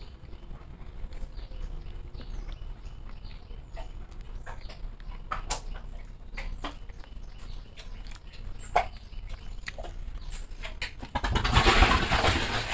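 Close-up eating sounds of a man eating roti and curry by hand: scattered wet chewing and lip-smacking clicks. About eleven seconds in, a louder rustling noise starts and runs a second or two.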